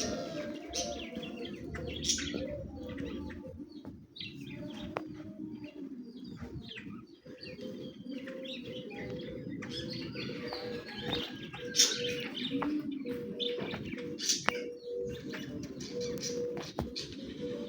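Small birds chirping repeatedly in short, high calls over a low, steady background rumble.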